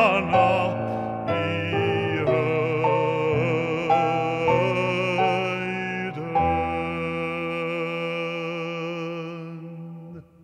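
Closing bars of a sung Advent hymn's keyboard accompaniment: a series of sustained chords changing every second or so, ending on a long held final chord that fades and stops near the end, with a short church echo after it.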